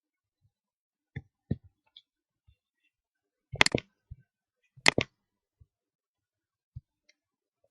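Scattered clicks of computer input, a mouse or keyboard, on near silence: a few faint ones early on, then two louder clusters, about halfway through and a second later.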